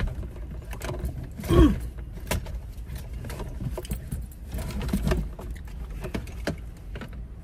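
A large plastic Halloween skeleton being handled into a car seat: irregular knocking, clacking and rattling of its limbs against the car's interior, with one louder knock about a second and a half in.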